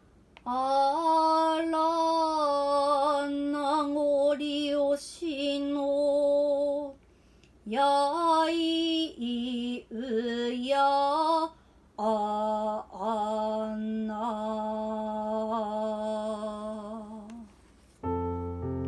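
Unaccompanied Noh chant (su-utai): a single voice sings long, held, wavering notes in three phrases, with short breaths between them. Near the end, a keyboard tune starts.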